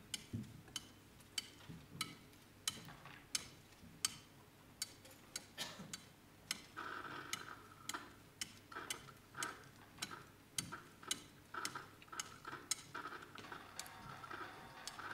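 Steady ticking, sharp clicks about three every two seconds. From about halfway, short bursts of a small motor's whir come and go between the ticks.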